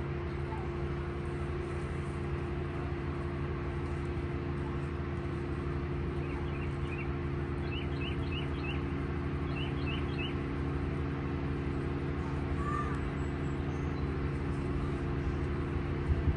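An engine runs steadily, a low drone holding one pitch. About halfway through, a bird gives a quick series of short, high chirps.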